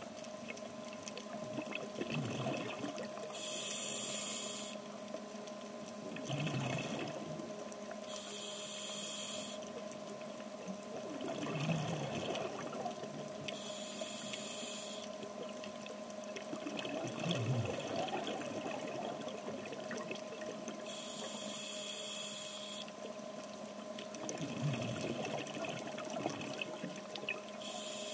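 Scuba diver breathing through a regulator underwater: a rush of exhaled bubbles about every six seconds, five times, with low swells of breath between them. A faint steady hum runs underneath.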